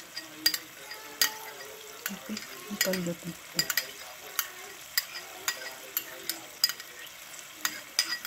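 Minced pork in oyster-sauce gravy simmering and sizzling in a pan: a steady hiss with sharp, irregular pops from bursting bubbles, about two a second.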